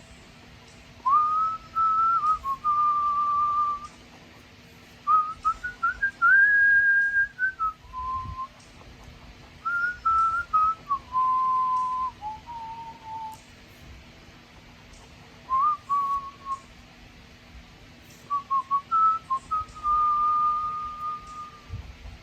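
A person whistling a tune: five short phrases of held, stepping notes with pauses between them.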